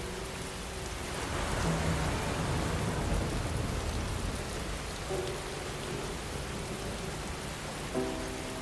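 Steady rain falling, with soft piano notes now and then over it: a low note about two seconds in, another note about five seconds in and a chord near the end. A low rumble swells under the rain in the first few seconds.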